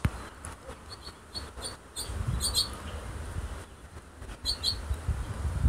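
Small birds chirping in short, high, repeated calls, several in quick pairs, over a low rumble. A single sharp click right at the start.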